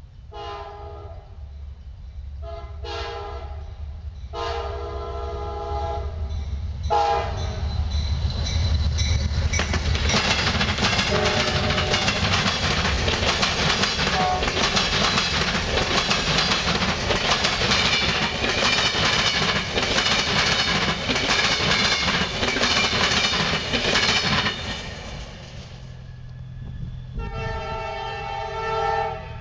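An Amtrak passenger train sounds its multi-note air horn in four blasts, the third one long. The locomotive then goes by with a deep rumble, and the passenger cars roll past with loud wheel-on-rail noise and a high metallic ring for about fifteen seconds. The noise fades, and one more horn blast sounds near the end.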